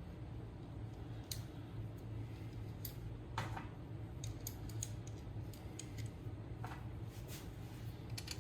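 Scattered light clicks and taps of hand tools working the bolts on a GY6 scooter engine's cam housing, irregular and faint, over a steady low hum.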